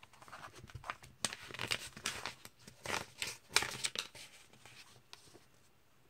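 Crinkling and rustling as a comic book is handled, a string of short rustles that die away about five seconds in.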